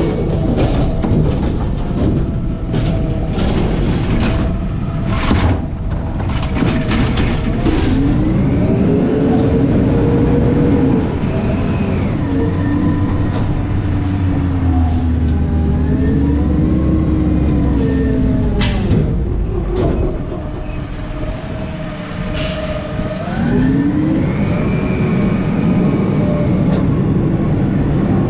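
Peterbilt McNeilus ZR side-loader garbage truck pulling away and driving: the diesel engine's pitch rises, falls and rises again as it accelerates and shifts, with the body and lifting arm rattling and knocking for the first several seconds.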